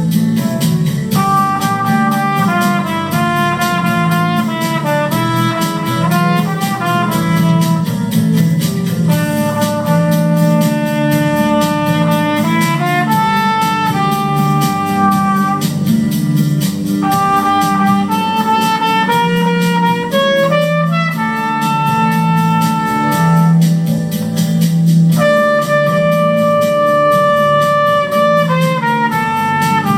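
Instrumental music: a single melody line moving between long held notes and short stepwise runs, over a steady, pulsing low accompaniment.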